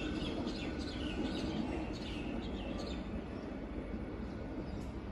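Small birds chirping, a run of short falling calls in the first three seconds or so, over a steady low rumble that slowly fades.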